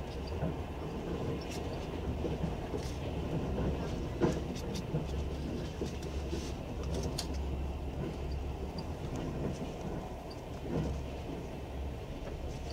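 Long-distance passenger train running at speed, heard from on board: a steady low rumble with scattered clicks of the wheels over rail joints, and one sharper knock about four seconds in.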